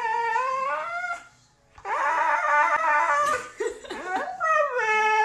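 Siberian husky howling. A long held howl rises in pitch and breaks off about a second and a half in. It comes back as a wavering, yodelling cry with quick pitch glides, then falls and settles into a long, steady howl near the end.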